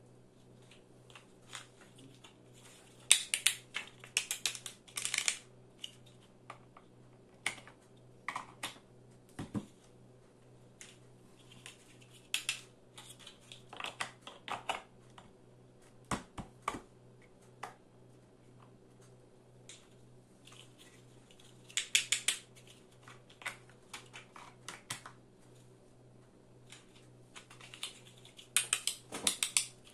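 Large plastic building blocks clicking and clacking as they are handled and pressed onto one another, in scattered clusters of sharp clicks with pauses between. A faint steady low hum runs underneath.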